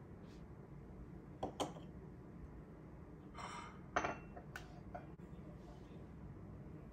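Ceramic cup, saucer and a glass teapot being set down on a marble countertop: two light clinks about a second and a half in, a short scrape, then the loudest clink at about four seconds and a couple of softer taps.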